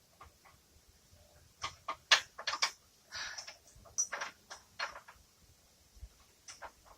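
Irregular sharp metal clicks and short scrapes of bolt hardware and hand tools being worked against a steel winch cradle as a bolt is fitted, the loudest about two seconds in.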